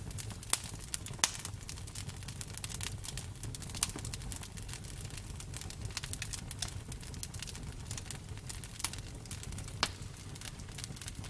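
Campfire burning, wood crackling and popping irregularly over a low steady rumble, with a few louder sharp pops scattered through.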